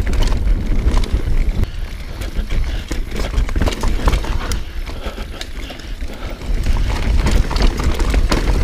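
Mountain bike descending a rough trail at speed: tyres running over dirt with a steady rumble, and the chain and frame rattling in many quick clicks. Wind buffets the microphone throughout.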